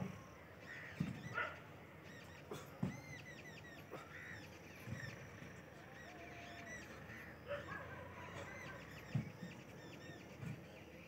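Birds chirping and calling, many quick high chirps repeating, with a few short sharp sounds scattered through.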